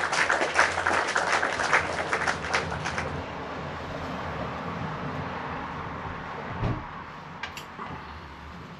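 Crinkling rustle of handled packaging and paper for about three seconds, then it fades to a faint hiss with a soft low bump near the end.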